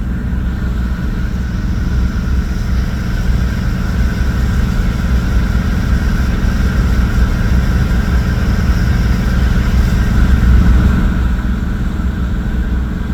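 Ferry's engines running, a loud, steady low rumble with a faint higher hum over it, swelling slightly near the end.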